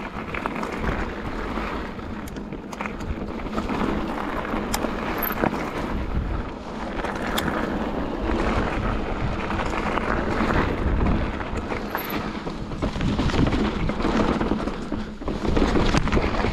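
Mountain bike rolling down a gravel singletrack: tyres running over loose stones with a steady rumble, scattered clicks and knocks from the bike over bumps, and wind buffeting the microphone.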